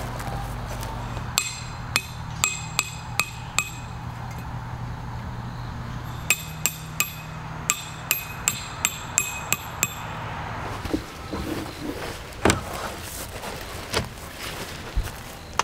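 A tent peg being hammered into the ground with a peg hammer. There are two runs of sharp, ringing strikes, about three a second: about six strikes, then after a short pause about ten more.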